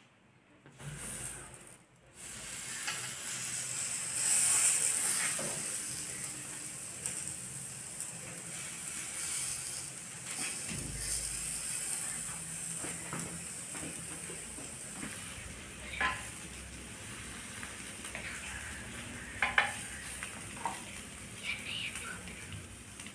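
Marinated chicken on skewers sizzling over hot charcoal in a small grill: a steady hiss that starts a couple of seconds in and is loudest soon after, with a few sharp clicks as the skewers are handled.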